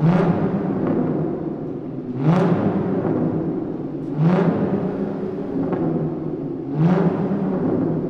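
Car engine idling and revved in four short blips about two seconds apart, each rising quickly in pitch and dropping back, with a strong echo off the concrete walls of a parking garage.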